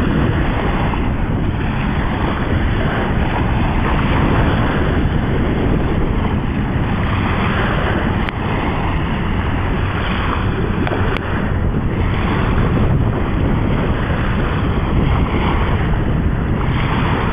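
Wind buffeting the microphone in a steady, loud, low noise, with surf washing on the shore underneath.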